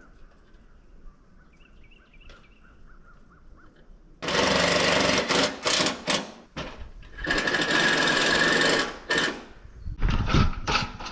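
Cordless power drill driving bolts into the pergola's aluminium frame: two rattling runs of about two seconds each, starting about four seconds in and again about seven seconds in, the second with a steady whine, followed by a few sharp knocks near the end.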